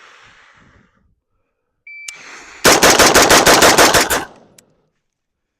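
A shot timer beeps once, then about half a second later a rifle fires a rapid string of about ten shots in roughly a second and a half.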